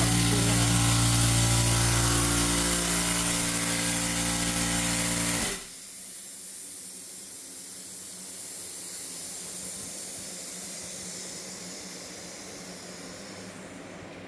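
A motor-driven machine running with a steady hum and a strong hiss, cutting off suddenly about five and a half seconds in. A softer, steady, fan-like rush continues after it stops.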